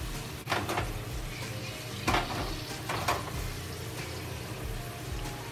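Potato chunks deep-frying in hot oil in a wok: a steady sizzle, with louder spells of crackling about half a second, two seconds and three seconds in.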